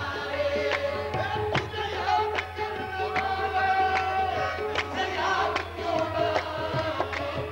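Live qawwali: a sung melody over a steady harmonium drone, with tabla and sharp percussive strikes keeping a regular beat.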